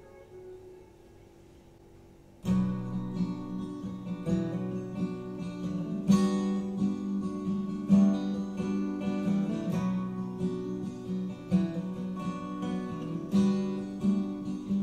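Acoustic guitar strumming played back through Focal Kanta N°1 loudspeakers. It starts abruptly about two and a half seconds in, after the last note of the previous song fades into a short quiet gap.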